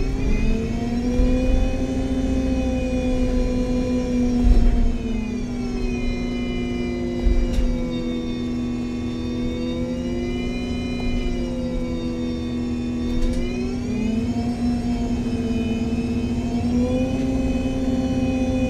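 Drivetrain of an articulated MAN Lion's City G NG313 CNG bus with a Voith automatic gearbox, heard from inside the bus while driving: a loud Voith whine whose pitch rises and falls several times with the bus's speed, over a steady low hum. Two short thumps come through, about four and seven seconds in.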